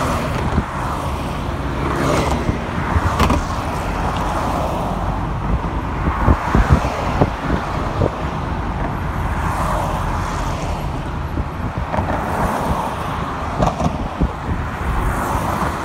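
Road noise in a moving car: a steady rumble of tyres and engine, with a few knocks about six to seven seconds in.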